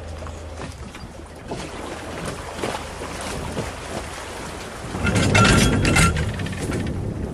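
Sailing yacht being floated off a roller trailer on a slipway: water sloshing around the hull and trailer, with small clinks and knocks. Louder, busier clatter about five seconds in.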